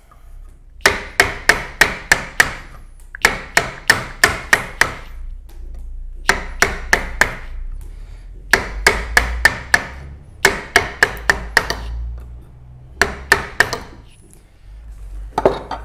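A 1-inch firmer chisel chopping down into a wooden wedge blank: runs of sharp knocks, about four or five a second, in groups with short pauses between.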